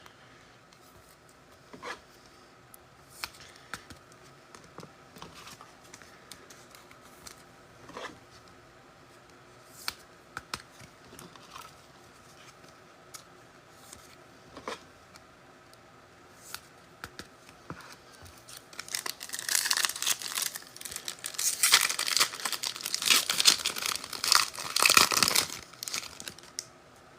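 Foil wrapper of a pack of football trading cards being torn open and crinkled, loud and crackly for several seconds starting a little past the middle. Before that there are only light scattered clicks from the cards being handled.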